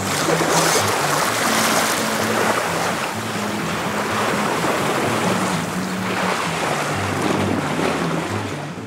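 Sea water rushing and splashing along the hull of a sailing yacht under way, with a background music bass line underneath.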